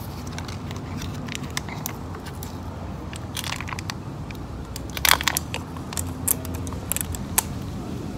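Paper and plastic cat food packaging crinkling and tearing as a small tub of cat food is unwrapped and opened, in irregular crackles with the loudest burst about five seconds in.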